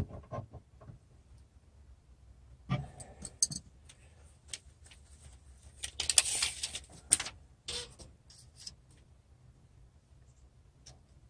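Hand tools being handled against a wooden floor beam in a crawl space: scattered short clicks and metallic clinks, with a longer stretch of rattling and rustling about six seconds in.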